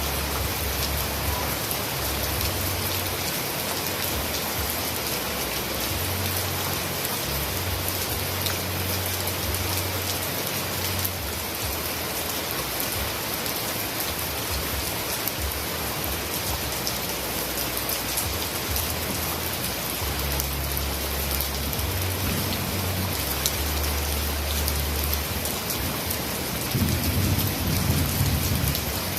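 Heavy rain falling steadily, a dense even hiss of drops on surfaces. A deep low rumble underneath swells louder near the end.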